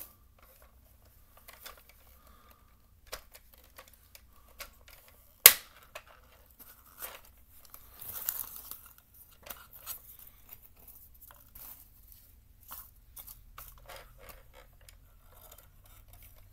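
Plastic clicks and rattles of a Bruder XE 5000 toy excavator's arm and bucket worked by hand, scooping and dropping scraps of torn cardboard. There is one sharp, much louder click about five and a half seconds in and a brief rustle of cardboard around eight seconds.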